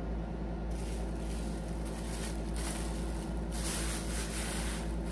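Thin plastic shopping bag rustling and crinkling in surges as it is handled, starting about a second in, over a steady low hum.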